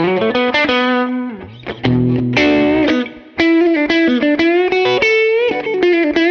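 Electric guitar: an alder/rosewood Telecaster fitted with Busch Arctic Wolf alnico 5 pickups, played through a Muleskinner amp. A picked lead phrase with string bends, broken by two short pauses.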